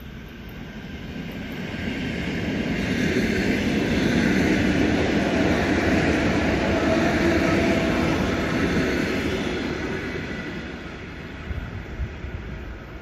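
ED9M electric multiple unit passing on the rails, its running and wheel noise swelling to a peak about four to eight seconds in, then fading as it draws away. A few short knocks come near the end.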